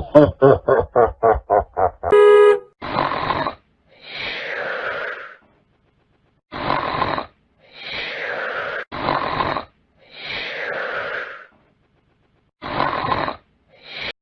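Sound-effect clips one after another: first a rapid run of about nine short pitched pulses, then a brief horn-like tone. After that come repeated noisy breath-like bursts, short ones alternating with longer ones that fall in pitch.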